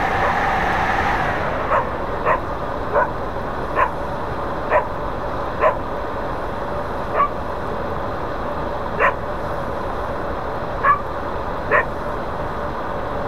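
Dog barking about ten times at irregular intervals, recorded by the FPV goggles' built-in microphone over a steady background hiss. A faint steady hum stops about a second in.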